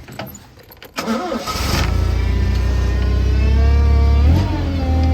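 An engine starts: a few clicks, then it cranks and catches about a second in and settles into a steady idle. A little after four seconds there is a brief rise in pitch, like a short blip of the throttle.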